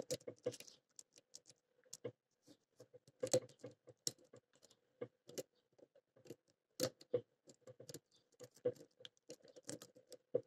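Homemade lock-picking rake being worked in the keyway of a small brass pin-tumbler padlock: faint, irregular light metallic clicks and scrapes as the rake scrubs over the pins, coming in uneven clusters.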